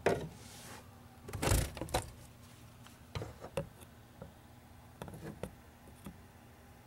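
A scattered series of knocks, clunks and clicks from tools and parts being handled, the loudest a clatter about one and a half seconds in, with smaller knocks after it.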